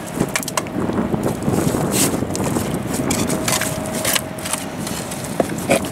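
Metal trowel digging and scraping into wet mud: irregular crunches and scrapes.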